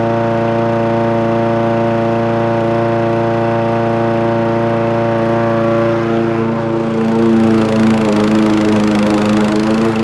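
Home-built remote-control lawnmower running with a steady drone that has a clear pitch. The pitch wavers slightly from about seven seconds in.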